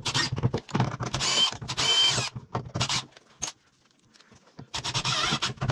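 Cordless impact driver (Milwaukee M12 Fuel) driving screws in several short bursts, some with a brief high whine, then a pause of about a second and one more burst near the end.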